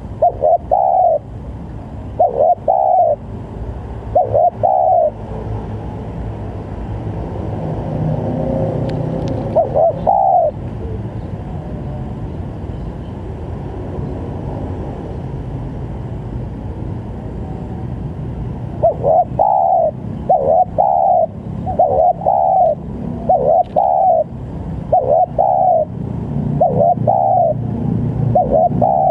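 Spotted dove (tekukur) cooing in short repeated phrases of low hooked notes, a few phrases at first, a gap of about eight seconds, then a steady run of calls in the last ten seconds. A low rumble runs underneath, louder in the middle.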